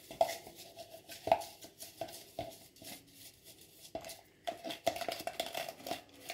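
An old toothbrush scrubbing the inside of a clear plastic food container with a baking-soda cleaning paste: irregular scrapes and clicks against the plastic, coming quicker in the last two seconds.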